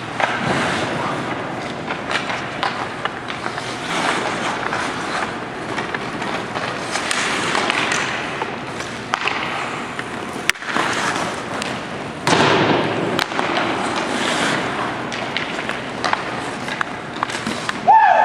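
Ice hockey skates scraping and carving across rink ice in repeated swells, with a few sharp knocks, the clearest about ten seconds in.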